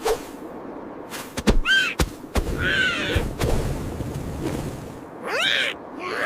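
Cartoon slapstick sound effects: a few sharp thuds, with short high squeaky cries sliding up and down in pitch between them.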